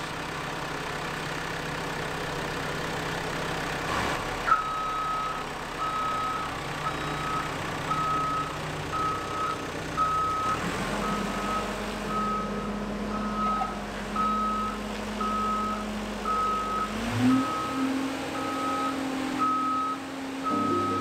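Travel lift's warning beeper sounding a single high beep about once a second while the hoist moves, over the steady hum of its engine. The engine note rises near the end.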